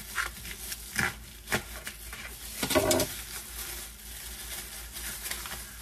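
Cutting a block of fresh cheese in the kitchen: a few scattered knocks and clicks of a knife and cheese against a board, the loudest cluster about three seconds in, over a low hiss.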